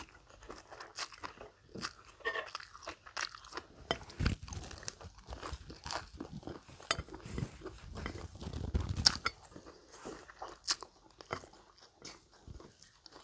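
Close-up crunching and chewing of fried chicken strips, in irregular crisp bites. The loudest crunch comes about nine seconds in.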